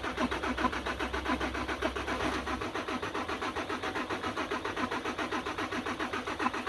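Isuzu 6HK1 common-rail diesel engine being cranked by its starter motor in a rapid, even rhythm without catching. It is cranked with one injector line loosened to purge air from the fuel system after injector work.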